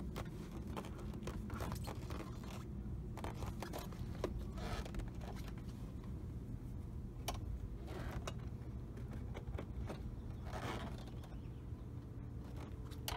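Plastic door panel of a 1997 Jaguar XJ6 being pried off the door with a plastic trim tool: scattered clicks and short scrapes as the push fasteners are levered out and the loosened panel shifts.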